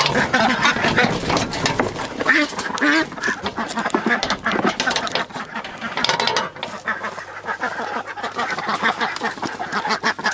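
Several ducks quacking in a busy, continuous chorus: agitated, flighty birds disturbed by a person in their pen.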